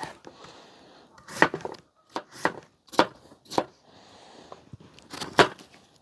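Potatoes dropped one by one into a camp Dutch oven: about seven short knocks at irregular intervals as they land.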